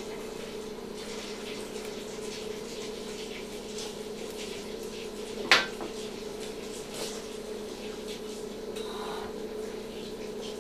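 Steel surgical instruments (hemostats, forceps and scissors) clicking faintly against each other over a steady hum, with one sharp metallic click about five and a half seconds in.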